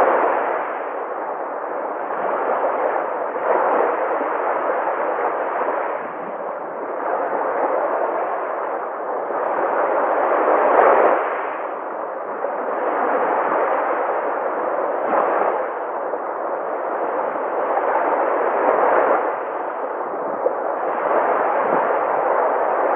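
Sea waves breaking and washing in: a continuous rushing noise that swells and eases about every four seconds, with the biggest surge about eleven seconds in.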